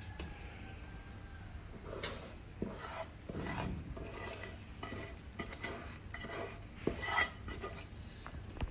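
Wooden spatula scraping a thick, sticky jaggery-and-puttu mixture out of a nonstick pan into a steel plate. It makes quiet, repeated scraping strokes, about two a second, starting about two seconds in.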